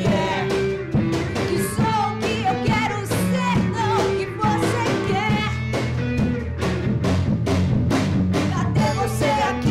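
Rock band playing a song live, with drum kit and electric guitars at a steady beat.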